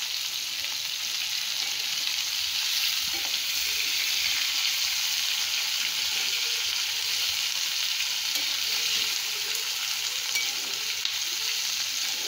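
Sliced ivy gourd (kovakkai) sizzling in hot oil in a pan while a spatula stirs it through, a steady frying hiss.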